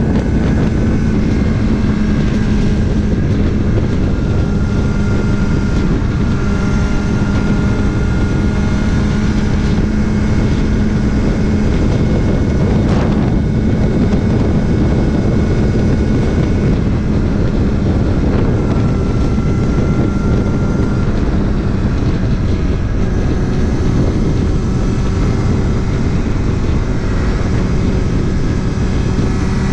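Kawasaki ZX-6R's inline-four engine running steadily at cruise with wind and road noise, the engine note easing slightly about halfway through. A single sharp click partway through.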